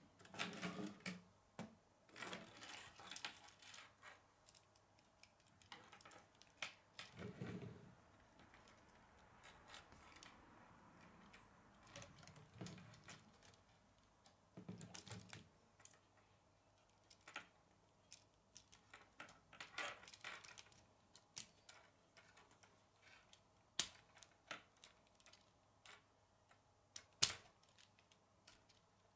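K'nex plastic rods and connectors clicking and rattling as they are handled and snapped together, with scattered light clicks throughout and two sharper snaps near the end.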